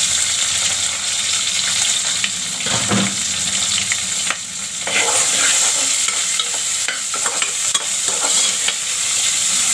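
Chopped onion frying in hot oil with mustard seeds, cumin and curry leaves in an aluminium pressure cooker base: a steady sizzle with scattered small crackles as the pan is stirred.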